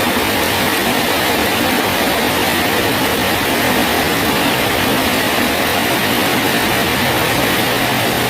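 Steady rain falling, a loud, even hiss that holds without a break.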